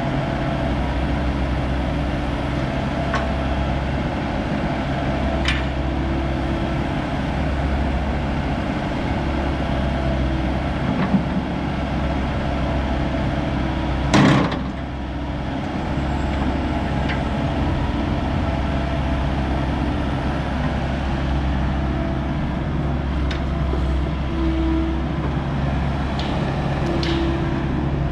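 Volvo ECR88D compact excavator's Volvo D2.6H diesel engine running steadily while the boom and arm move under hydraulic power. There is one loud, sharp knock about halfway through.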